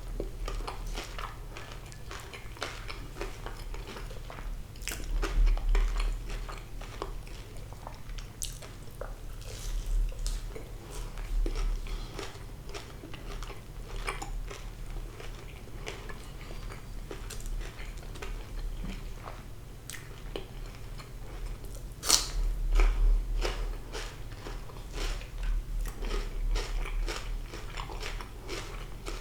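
Close-up eating sounds of crispy fried sea bass, its skin a little burnt: repeated crunching bites and wet chewing, with one especially loud crunch about 22 seconds in.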